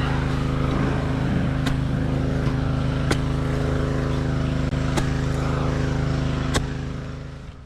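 A motor runs steadily at a constant pitch, with four sharp ticks spaced a second or two apart. It fades out near the end.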